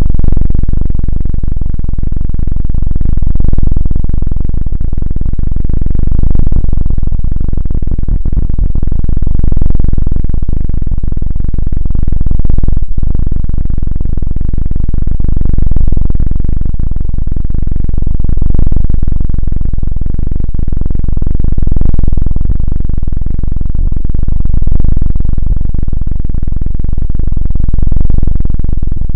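Loud, low droning music with distorted guitar and synthesizer tones, swelling in loudness about every three seconds.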